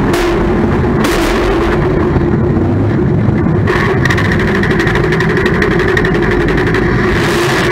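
Race car engine running hard and changing revs, heard from inside the cockpit, with rock music laid over it.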